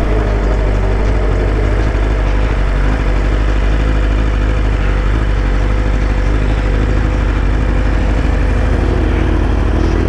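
BMW S1000RR sport bike's inline-four engine running at a steady speed while riding, with no clear revving.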